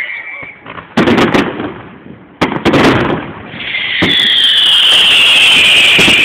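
Fireworks display: two loud firework bursts about a second and a half apart, each echoing away. Then a long, steady, high-pitched hiss from the fireworks starts and slowly slides a little lower.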